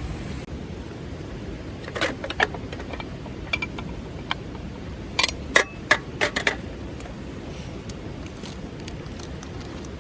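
Short metallic clinks and knocks, a few about two seconds in and a quicker cluster from about five to six and a half seconds, some with a brief ring, over a steady rushing background.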